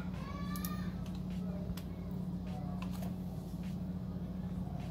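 Faint background voices over a steady low hum, with a few sharp clicks.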